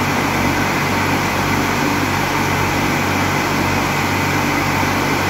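Electric flour mill (chakki) running steadily while it grinds grain, a loud even machine noise with a low electric hum underneath.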